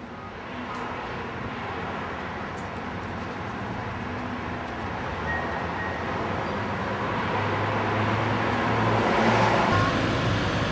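City street traffic: a vehicle's engine and tyre noise growing steadily louder as it approaches, loudest about nine seconds in.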